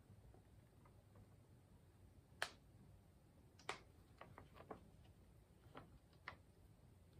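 Faint, scattered clicks and taps from a foil food pouch being handled and squeezed over a metal tray. The loudest comes about two and a half seconds in, followed by a quick run of small ticks in the middle and two more near the end.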